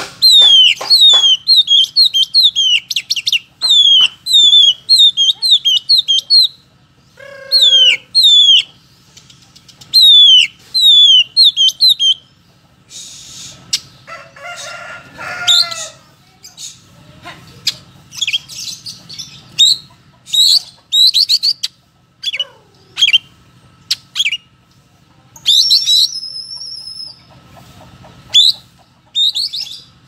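Oriental magpie-robin (kacer) singing hard in full song. It opens with a long, loud run of quick falling whistles, turns harsher and scratchier around the middle, then goes on with scattered sharp whistles.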